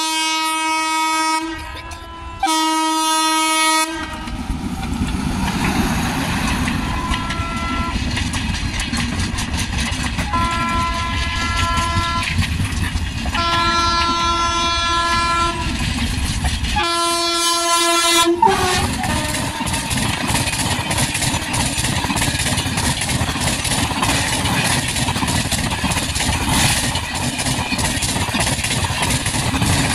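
Indian Railways express train sounding its locomotive horn six times as it approaches, the middle blasts fainter. The train then passes at speed close by, a dense rumble of coaches with wheels clattering over the rails.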